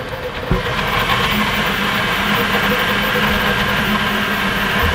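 Elegoo Centauri Carbon enclosed CoreXY 3D printer printing, its fans and motors running with an insanely loud, steady noise and several held tones. A single short knock about half a second in.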